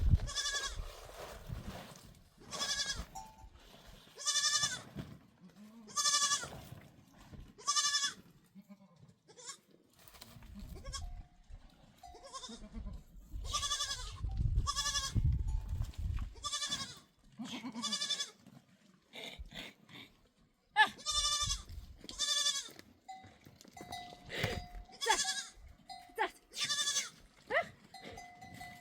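A flock of goats and sheep bleating, with repeated quavering bleats from several animals a second or two apart. A small livestock bell clinks now and then, most in the last few seconds.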